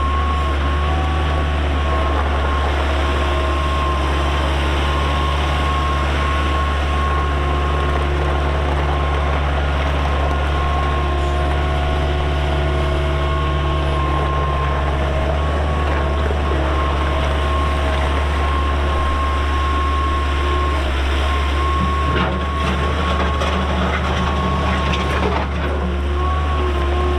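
1993 Bobcat 743B skid steer's Kubota diesel engine running steadily under a high, even whine while the machine is operated. About three-quarters of the way through the engine note shifts and a few knocks are heard.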